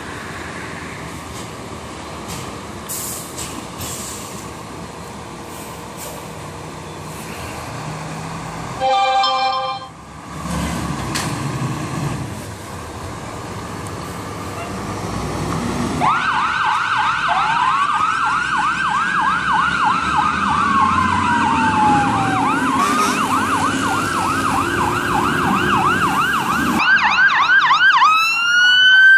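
Fire apparatus pulling out on a call: engine rumble, then a short air-horn blast about nine seconds in, and the engine revving. From about sixteen seconds on, sirens go, a slow up-and-down wail with a fast yelp over it, joined near the end by a second, higher sweeping siren.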